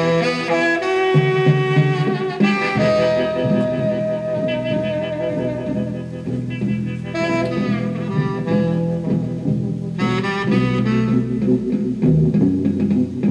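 Music from a 45 rpm record playing on a 1956 RCA 7-HF-45 Orthophonic high-fidelity record player, heard through its four-tube amplifier and separate woofer and tweeter speakers. A melody with long, wavering held notes runs over a steady low accompaniment.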